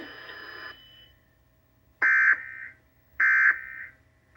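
Emergency Alert System end-of-message signal: short, identical bursts of warbling digital data tones, about 1.2 seconds apart, marking the close of the test broadcast. Two bursts are heard in full and a third begins at the very end, after a louder sound dies away in the first second.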